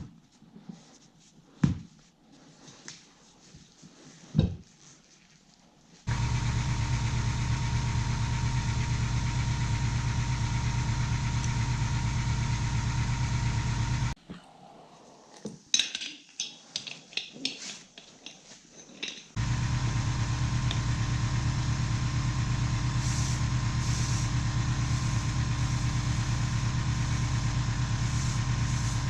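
Electric air compressor running with a steady hum. It switches off abruptly for about five seconds, during which there are clicks and taps, then starts again.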